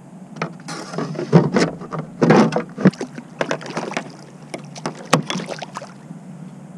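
Irregular knocks, clatter and rustling of gear being handled aboard a fishing kayak.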